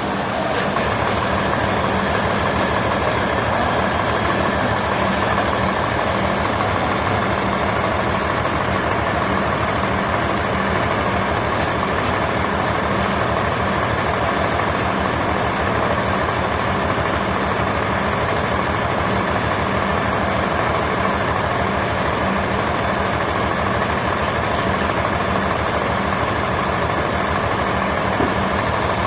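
A heavy engine running steadily at an even speed, with a fast regular pulse and a constant low hum.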